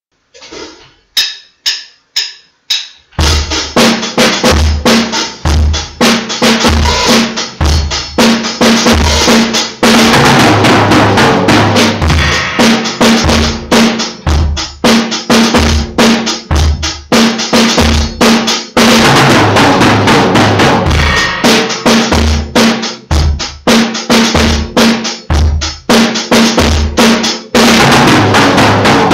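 Four short clicks about half a second apart, then drums come in with a steady repeating beat of bass drum and snare.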